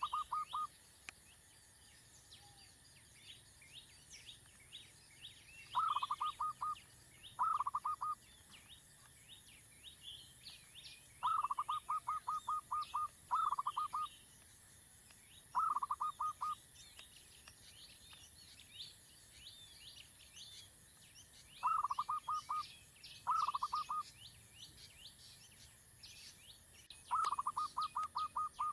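A bird repeatedly gives short bursts of rapid, evenly spaced clucking notes, each burst under two seconds and recurring every few seconds. Under them runs a constant chatter of higher chirps and a steady high hiss.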